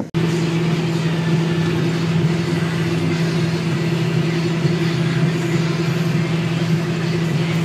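John Deere tractor running steadily under load while its front mulcher shreds a mustard cover crop, heard from the cab as a constant drone.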